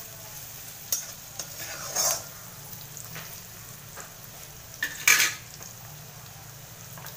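Sliced onions and carrots frying in a metal kadhai, sizzling as a spatula stirs them, its scrapes on the pan's metal heard about one and two seconds in. About five seconds in comes a sharp metal scrape or clank, the loudest sound.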